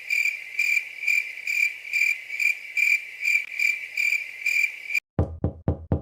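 Crickets chirping in a steady pulse about twice a second. The chirping cuts off suddenly about five seconds in and is followed by four quick, low knocks.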